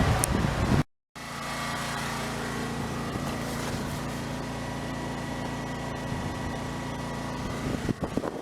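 Small portable generator engine running steadily: an even, low hum. It follows a short, louder low rumble in the first second that ends abruptly.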